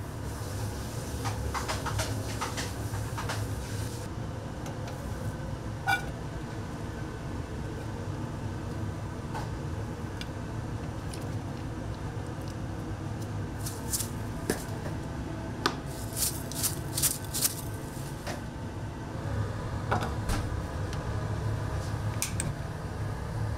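Commercial kitchen background: a steady low hum with scattered clinks and clatters of metal trays and utensils, one ringing clink about six seconds in and a quick run of clatter a little past the middle.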